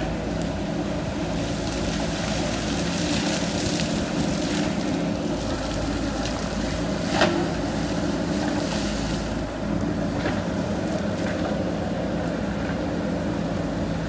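JCB backhoe loader's diesel engine running steadily as the backhoe arm is worked. A single sharp knock comes about seven seconds in.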